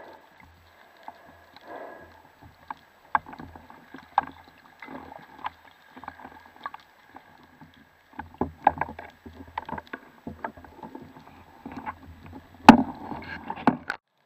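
Muffled underwater sound heard through a diving camera's housing: irregular clicks and knocks from speargun and gear being handled, with a faint steady high tone behind them. The loudest knock comes near the end, and the sound then stops abruptly.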